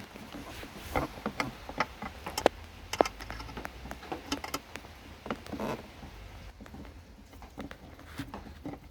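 Scattered light clicks and taps of hands working plastic parts and fittings around a motorcycle headlight housing, irregular and with no rhythm.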